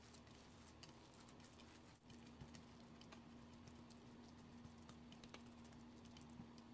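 Faint wet squishing and patting of a hand kneading a raw minced chicken and aged kimchi dumpling filling, heard as a string of small irregular clicks over a steady low hum.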